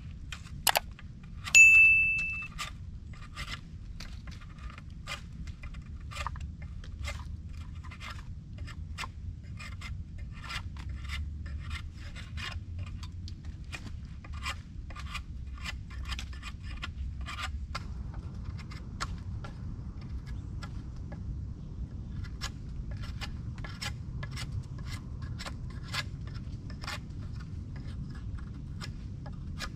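Long-handled digging tool striking and scraping into soil in repeated short strokes, one or two a second. About a second and a half in, one loud ringing clang of metal.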